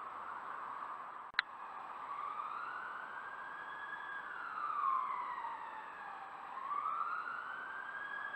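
Emergency-vehicle siren in a slow wail, its pitch rising and falling about every four to five seconds. A single sharp click about a second and a half in.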